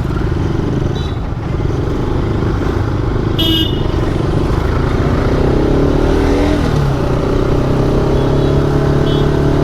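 Motorcycle engine running while riding, with a steady drone and road and wind noise; the engine note shifts a little about five to seven seconds in. A short vehicle horn toot sounds about three and a half seconds in, with fainter toots near the start and end.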